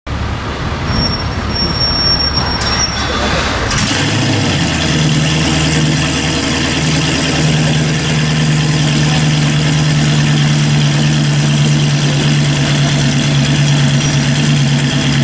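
An engine catches about four seconds in, over a lower rumble, and settles into a steady idle.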